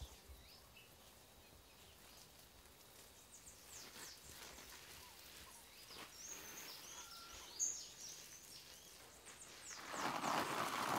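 Small birds chirping faintly over quiet garden ambience. Near the end, a steady hiss of water spraying from a garden hose onto plants starts up.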